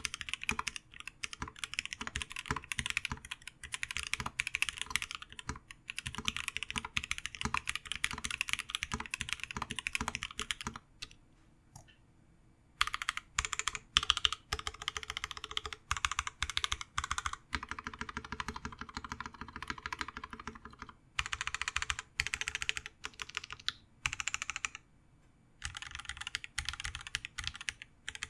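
Typing on a custom mechanical keyboard: the ION x Rama Works Zenith with a PVD-coated brass plate, lubed Gateron Black Ink v2 linear switches and CRP Tulip keycaps. Fast, continuous runs of keystrokes pause about 11 seconds in and again near 25 seconds.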